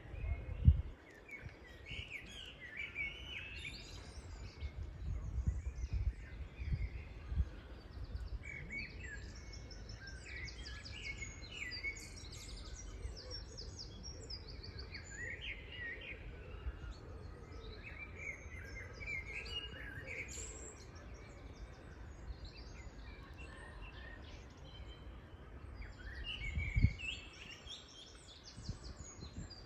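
Many small birds chirping and calling in quick, overlapping bursts, over a low rumble with a sharp thump about a second in and another near the end.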